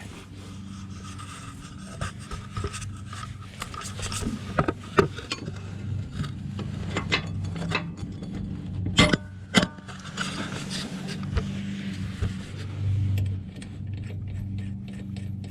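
Metal clinks, scrapes and knocks of tools and shock hardware as a new front shock absorber and its bushing are fitted, with two sharper knocks about nine seconds in. A steady low hum runs underneath.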